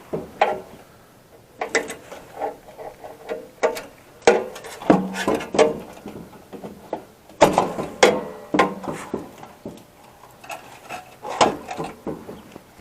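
Irregular clicks, clanks and rattles of metal parts and hand tools being handled while wiring and components are pulled out of a computer server rack, a couple of the knocks ringing briefly.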